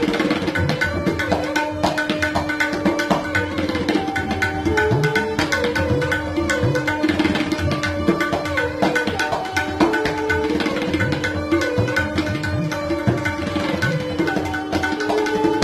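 Tabla solo in rupak taal: rapid strokes on the pair of drums, with bass strokes that bend in pitch, over a repeating bowed sarangi melody (lehra) that keeps the cycle.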